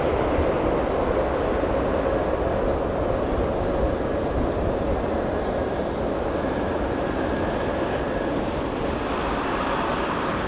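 Boeing 747-8F freighter's GEnx jet engines heard as a steady, loud rushing noise.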